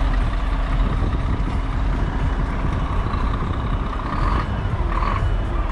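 Steady low outdoor rumble among parked trucks, with a faint high steady tone that sounds for about a second and a half in the middle and again briefly near the end.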